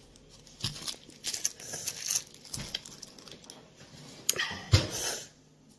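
Scattered soft clicks and rustles of small toy pieces being handled in a plastic bowl, with a louder thump about five seconds in.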